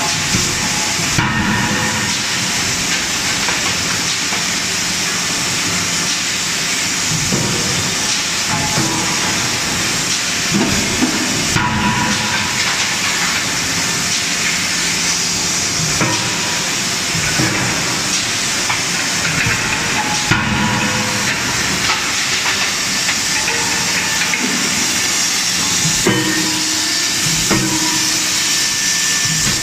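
CNC hydraulic die forging hammer at work, die-forging hot steel universal-joint cross pieces: a steady loud hiss with scattered sharp knocks from the hammer striking the workpiece.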